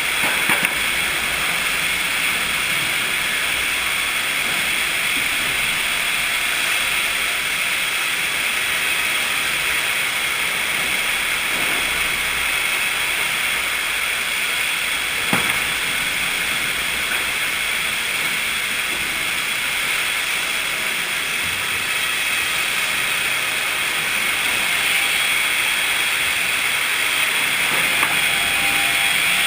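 Sawmill machinery running with a steady hissing noise, broken by an occasional sharp knock.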